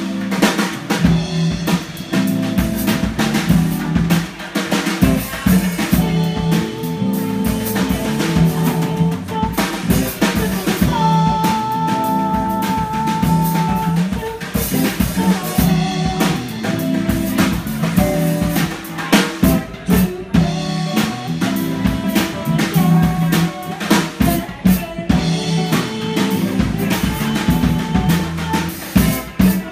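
Small live band playing: electric guitar, electric bass and a drum kit, with busy snare and rimshot hits over a steady bass line. One note is held for about three seconds near the middle.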